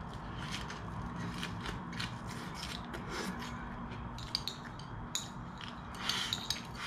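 Close-up chewing of a crisp lettuce wrap, with irregular crunching crackles. About six seconds in, chopsticks scrape and click against a porcelain rice bowl as rice is pushed into the mouth.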